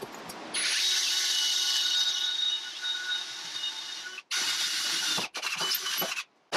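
Cordless drill running steadily as it bores a pilot hole through an aluminum boat hull. It stops briefly about four seconds in, then runs twice more in short spurts.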